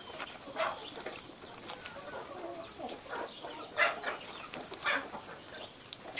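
Dried leaf wrapper of a sticky-rice parcel crackling and rustling as small hands pull it apart, in a few sharp crinkles.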